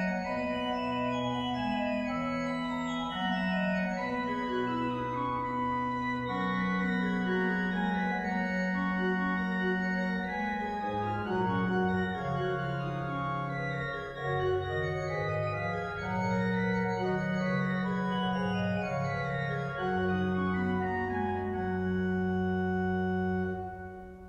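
Church pipe organ playing a Baroque piece in several voices: a held bass line under fast descending runs in the upper parts. The closing chord is released near the end and dies away.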